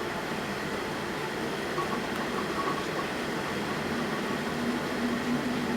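Steady rushing and rumbling noise of a storm at sea heard aboard a ship, with a faint hum coming in during the second half.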